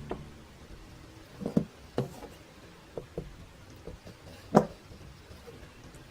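A few light, irregular knocks and taps, the loudest about four and a half seconds in, over a faint low room hum.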